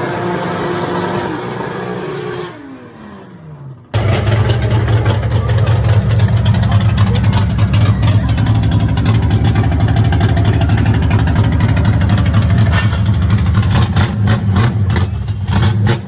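Loud exhaust of Chevrolet Opala engines: the first holds steady revs, then its pitch falls away as it slows. About four seconds in, a deeper and louder exhaust takes over, running steadily at a low idle-like note and turning uneven, with sharp cracks, near the end.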